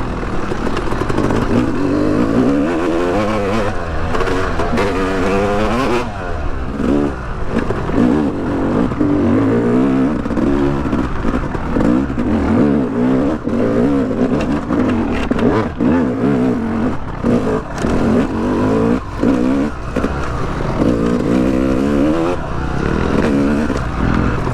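Yamaha YZ250X two-stroke dirt bike engine being ridden on trail, heard from inside the rider's helmet. The revs keep climbing and dropping as the throttle is worked on and off, with a few short knocks as the bike goes over the ground.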